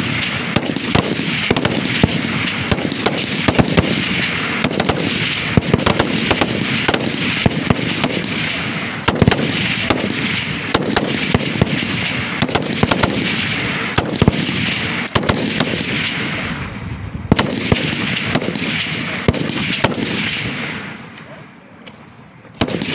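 Several rifles firing from the prone position at once, single shots overlapping irregularly, their reports echoing and running together into a continuous rumble. The firing thins out and dies away near the end, with one or two last shots.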